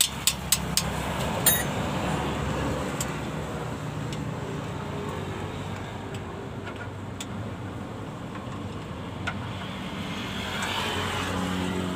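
A few sharp metallic clicks in the first second and a half, then scattered single ticks, from hand tools worked on the clutch slave cylinder under a Mitsubishi Canter minibus, over a steady low hum.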